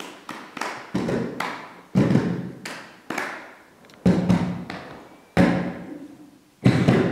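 Hands striking upturned plastic tubs played as drums: a series of thuds in an uneven rhythm, each ringing out briefly in the room.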